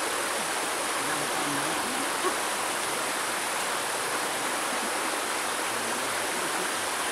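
Shallow river flowing steadily over rocks, an even rush of water.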